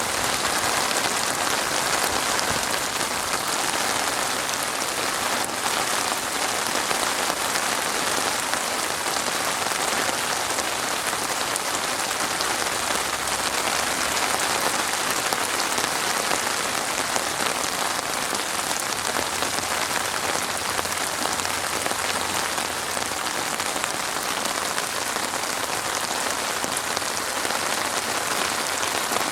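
Steady heavy rain falling and pattering on surfaces, an even dense hiss with no breaks or thunder.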